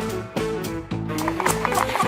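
Background music with a plucked melody stepping in pitch. About a second in, a quick run of short clicking taps joins it.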